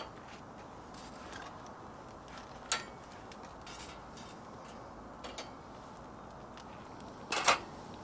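Glowing charcoal in a grill basket crackling and snapping, with scattered sharp pops over a faint steady hiss and a louder burst of snaps near the end.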